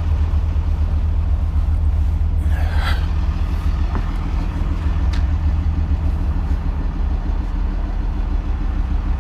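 Steady low rumble with a faint hum running through it, and a brief scuffing rustle about two and a half seconds in.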